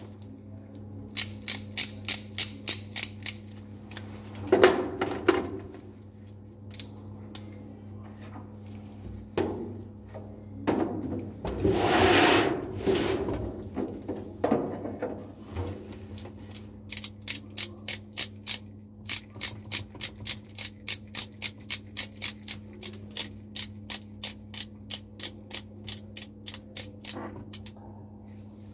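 Hand-held lab equipment clicking like a ratchet in evenly spaced clicks, about four a second: a short run near the start and a long run of about ten seconds in the second half. In between come a few handling knocks and a plastic rustle, over the steady hum of the biosafety cabinet's blower.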